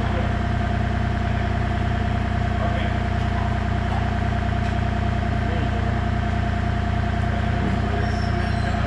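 Compact excavator's diesel engine idling steadily while it holds a load on its chains, with a steady high whine over the engine.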